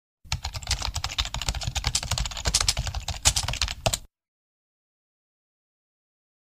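Computer keyboard typing sound effect: a fast, uneven run of key clicks that stops abruptly about four seconds in.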